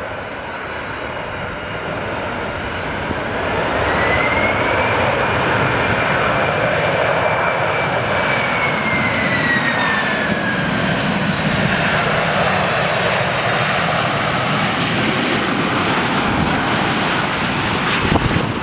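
Jet airliner (an ANA Boeing 767-300) landing close by, its engines roaring louder from about three seconds in. A high whine holds steady, then slides down in pitch as the aircraft passes.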